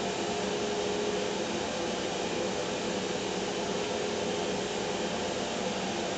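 Grizzly G0514X2B bandsaw running free with no wood in the cut, together with the steady fan noise of the shop dust collector drawing through the hose at the table. The sound is an even, unbroken machine drone with a faint steady hum in it.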